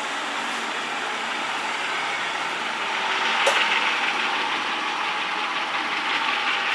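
Large manual lathe running steadily with its spindle turning in the low gear range, a continuous mechanical noise, with a sharp click about three and a half seconds in.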